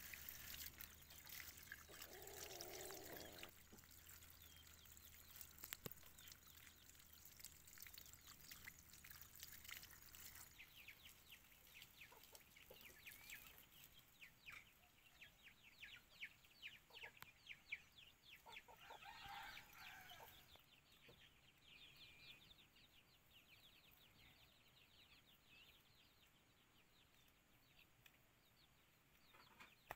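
Water from a garden hose splashing and trickling faintly onto leaves and soil, with occasional bird calls in the background.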